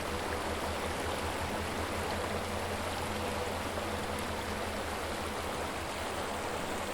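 Steady flowing water, an even rushing like a stream, with a faint low steady hum beneath it.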